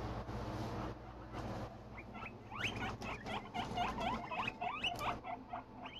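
Guinea pigs wheeking: a rapid run of short, rising squeaks that starts about two seconds in and carries on for about three seconds.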